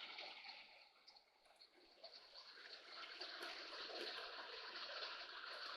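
Rain falling on a motorhome's roof, heard from inside: a faint, even patter with scattered small drop ticks, growing a little stronger about three seconds in.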